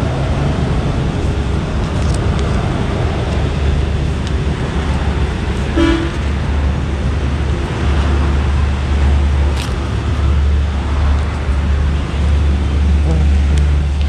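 Onboard road noise from a moving motorcycle: a steady low rumble of wind and engine with traffic around, and a brief horn toot about six seconds in.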